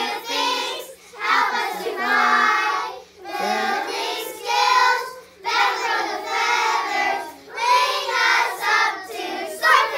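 A group of young schoolchildren singing a short class song together in unison, in phrase after phrase, each about a second long with brief breaks between.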